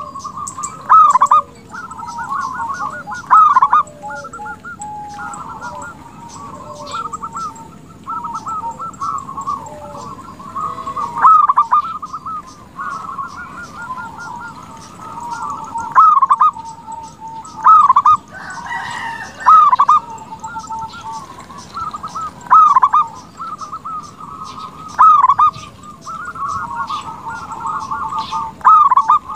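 Local zebra dove (perkutut) singing: loud coos every few seconds, linked by long runs of rapid, rolling trilled coo notes.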